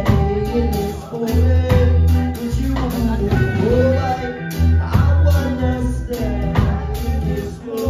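Live band playing a song, with strummed acoustic guitar, electric guitar and drum kit over a strong, pulsing low end, and a lead voice singing the melody.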